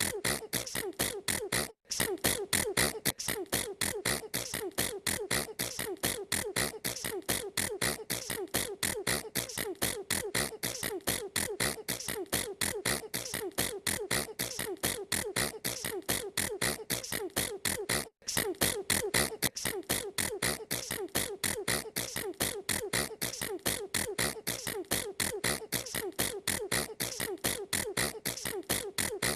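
A girl's sneezes repeated in very rapid succession, about four a second, without a pause except for two momentary cut-outs.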